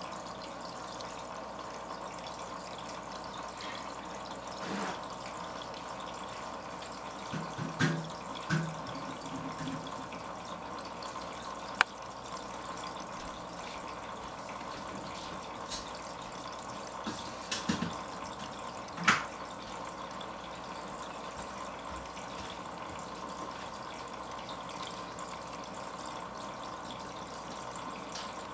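Steady trickle of running water, with a few soft knocks and two sharper clicks, about twelve and nineteen seconds in.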